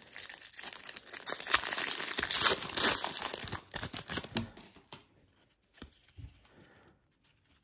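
Shiny foil wrapper of a 1991 Pro Set Platinum football card pack crinkling and tearing as it is ripped open. The crackle stops about four and a half seconds in, leaving only faint ticks of cards being handled.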